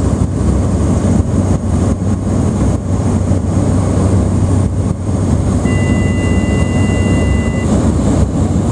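Steady, loud drone of a small propeller airliner's engines and propellers heard inside the passenger cabin during the landing approach, with a deep hum under it. About halfway through, a faint steady high two-note tone sounds for about two seconds.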